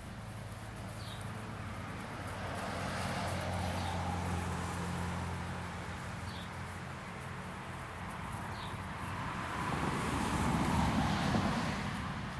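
A low motor hum, like a passing vehicle, that swells and fades twice.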